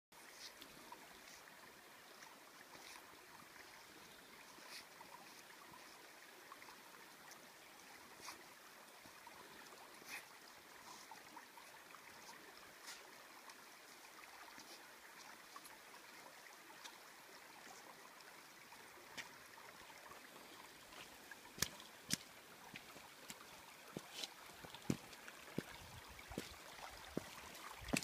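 Shallow creek water running over rocks, a faint steady rush. Scattered sharp clicks and knocks, the loudest sounds, come thicker in the last several seconds.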